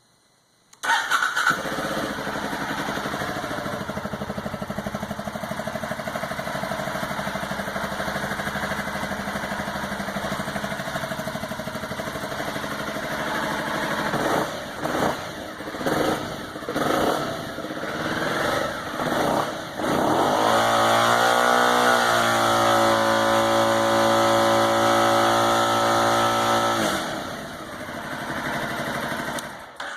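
A 2009 Aprilia Shiver 750's V-twin engine, misfiring on the front cylinder, starts about a second in and idles, is blipped several times, then held at higher revs for several seconds before dropping back and shutting off near the end.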